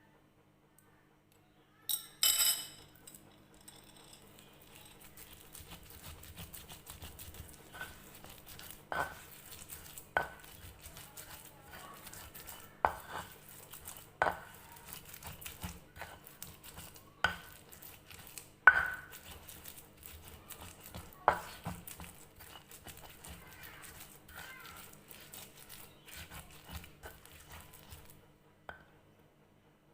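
Stone pestle grinding chilli sambal in a mortar: continuous scraping with irregular sharp knocks every second or two. A louder clatter comes about two seconds in, and the grinding stops shortly before the end.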